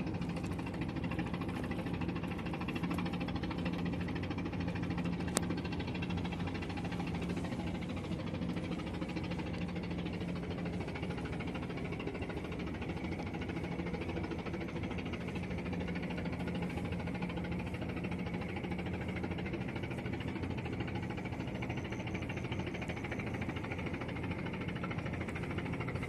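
An engine running steadily with a low, even hum, and a single sharp click about five seconds in.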